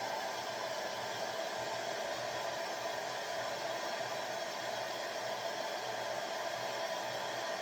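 Hand-held hair dryer blowing steadily, drying a just-placed weave track.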